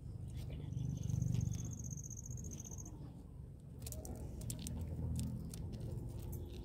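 Turtle's claws scratching and clicking against a plastered wall and loose soil as it pushes and climbs, in a cluster of short scrapes about four to five and a half seconds in, over a low steady rumble. A high steady tone sounds for about two seconds near the start.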